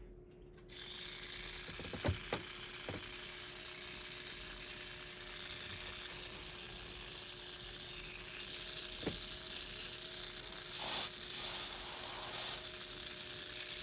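Small electric motor of an Auto World 4-gear HO slot car chassis running, a steady high whine with gear noise that starts suddenly about a second in and gets louder after about eight seconds, with a few light clicks. It runs freely with its armature freshly cleaned with contact cleaner.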